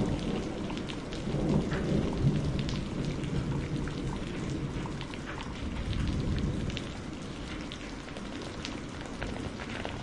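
Heavy rain falling steadily, with fine drop ticks, over a low rumble of thunder that swells in the first few seconds and then dies away.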